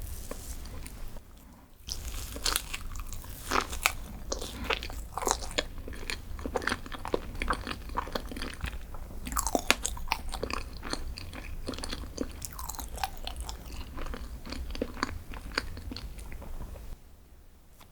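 Close-miked eating: one crunchy bite, then a stretch of crisp crackling crunches as the food is chewed. The sound drops off near the end.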